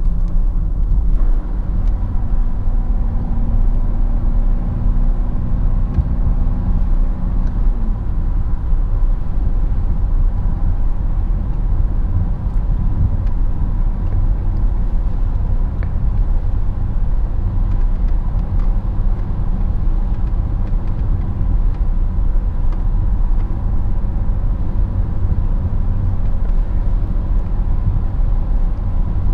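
BMW 530d (E39) straight-six turbodiesel and road rumble heard from inside the cabin while driving. The engine note climbs over the first few seconds, then drops about eight seconds in, and the steady drive noise carries on.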